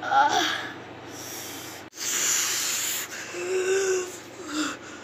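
A child breathing hard and gasping, with a long, loud breath out about two seconds in and a brief hummed moan just after it.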